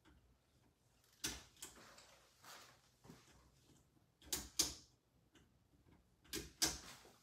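Sharp clicks and knocks of kitchen appliances being tried, coming in three pairs with fainter taps between, while checking why things stopped working.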